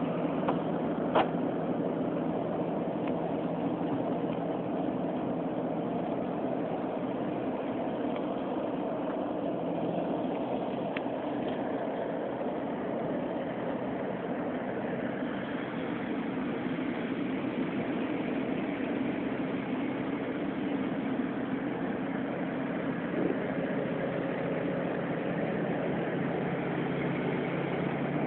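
Steady rumbling snore, going on without any pause for breath, with a faint click about a second in.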